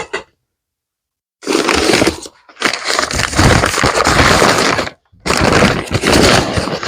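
Packing paper crinkling and rustling as a wrapped item is unwrapped by hand, in two long stretches: one starting about a second and a half in, and another after a brief pause near the five-second mark.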